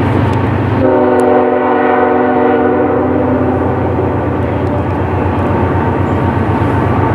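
Nathan Airchime locomotive air horn sounding one long chord, starting about a second in and dying away after a few seconds, over the steady low rumble of a locomotive.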